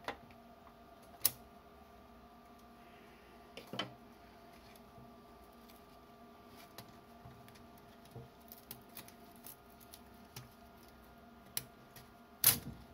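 Scattered light metallic clicks and knocks as a coiled flat return spring is wound by hand into the drill press's spindle feed housing. There is a sharp knock about a second in, another about four seconds in, and the loudest just before the end, over a faint steady hum.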